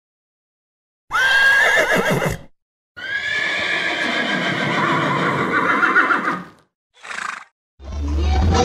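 Horse whinnying twice, a short call and then a longer, wavering one, followed by a brief third sound. Music comes in near the end.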